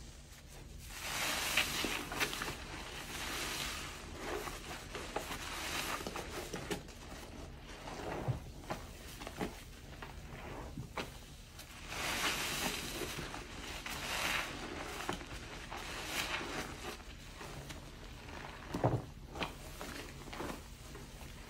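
A soap-loaded sponge being squeezed and kneaded by hand in a basin of sudsy water: wet squelching and the fizz and crackle of thick foam. There are two longer stretches of hissing foam, with scattered short squishes between them.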